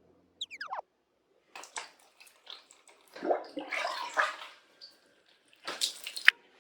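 Bath water splashing and sloshing in irregular bursts while a cat is washed, with a brief high squeal that falls in pitch about half a second in.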